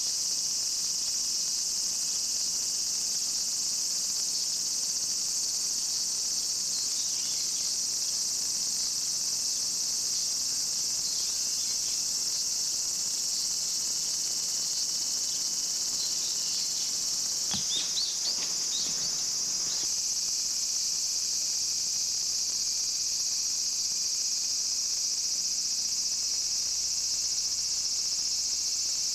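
Kaempfer cicadas (niinii-zemi) droning in chorus as one steady, high-pitched hiss. A brief knock sounds a little past halfway.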